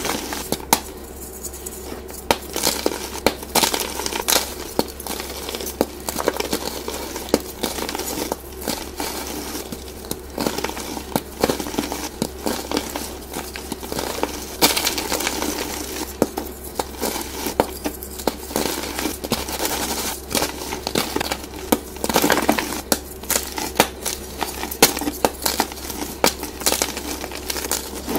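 Chalk blocks being crushed and crumbled by hand close to the microphone: dense, irregular crackling and crunching with frequent sharp snaps, over a steady low hum.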